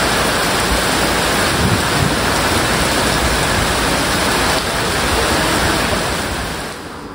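Steady loud rush of running water, which drops away sharply just before the end.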